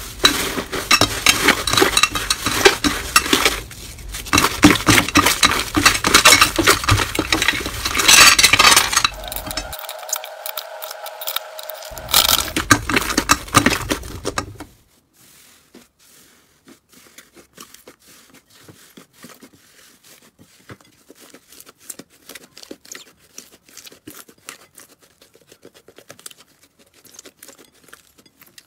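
Hands stretching and squeezing slime, with dense, loud crackling and squelching. About halfway it drops abruptly to much quieter, sparse clicks and small pops as a slime is pressed and squeezed.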